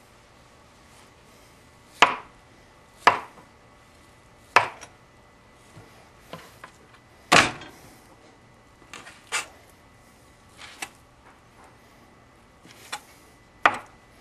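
Large Henckels chef's knife knocking against a plastic cutting board as it trims fat off a raw beef roast: about eight sharp, irregular knocks with fainter ticks between.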